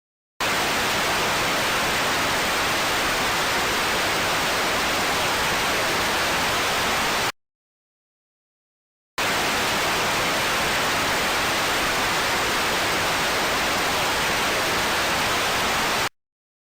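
Television static: a steady, even hiss with no tones in it, played in two stretches of about seven seconds each. Each stretch starts and stops abruptly, with about two seconds of silence between them.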